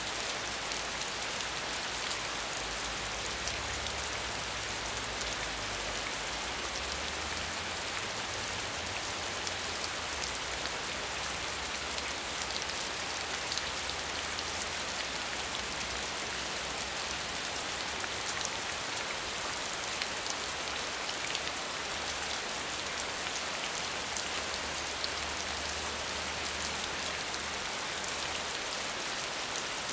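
Steady medium rainfall: an even hiss of rain with many fine drop hits throughout, and a faint low rumble coming and going underneath.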